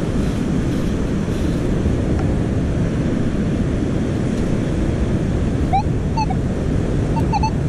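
Wind buffeting the microphone over steady surf. About six seconds in, a Minelab Manticore metal detector starts sounding short repeated beeps as it is swept over a buried target.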